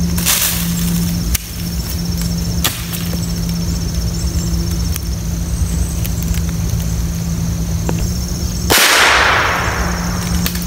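A single .22 LR rifle shot about nine seconds in: a sharp crack that rings on and fades over about a second.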